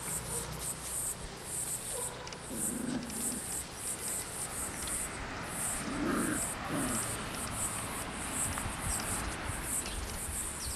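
Puppies growling low in short bouts as they tug and wrestle over a toy, with a steady high chirping of insects pulsing about twice a second behind them.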